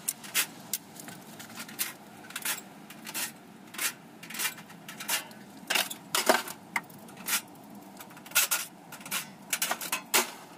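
Sharp metallic clicks and clinks, about two a second and irregularly spaced, from a hand tool working on the sheet metal of a scrap air-conditioner unit while it is being dismantled.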